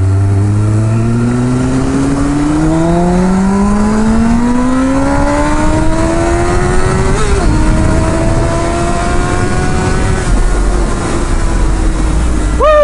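A 1999 Kawasaki ZX-6R's 600cc inline-four engine accelerates hard, its note climbing steadily through the revs for about ten seconds with a brief dip about seven seconds in. The note then levels off, and near the end gives a quick rise and a falling sweep. Wind rush runs under it throughout.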